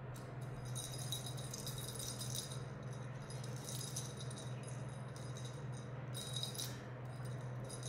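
Small jingle bells on a feather wand cat toy jingling in short bursts as the toy is dragged and batted across a woven rug, over a steady low hum.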